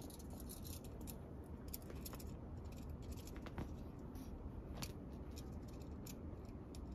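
Faint irregular scratchy rustles and small crisp clicks of a cat's paws scuffing a woven cloth bed cover as it rolls and bats at a feather wand toy, in short flurries with a louder scuff about three and a half seconds in.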